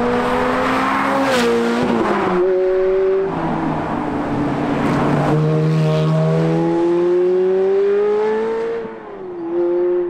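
Ferrari F430's 4.3-litre naturally aspirated V8 driven hard past the camera. The engine note climbs and drops back at gear changes, a rush of road and wind noise comes as the car goes by about halfway through, then a long rising pull before the note falls away near the end.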